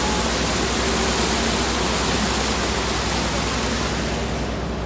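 Steady rushing noise of wind and water on a moving river cruise boat, over a low engine hum; the hiss softens a little near the end.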